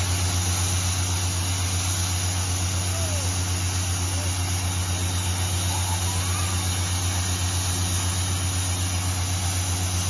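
A trailer-mounted 350 PSI diesel air compressor running steadily: a low engine drone with a fast, even pulse.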